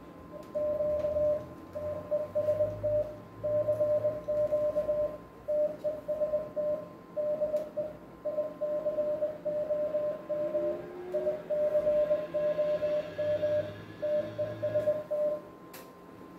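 Morse code sidetone from an HF transceiver: a single steady beep keyed on and off in dots and dashes, the sign that the rig is transmitting CW into the 500 W linear amplifier under test. The keying stops about a second before the end.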